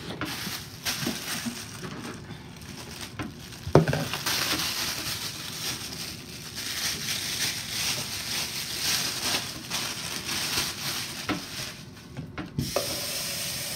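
Thin plastic bag crinkling and rustling as it is handled, with a sharp knock about four seconds in. Near the end a kitchen tap starts running steadily into the sink.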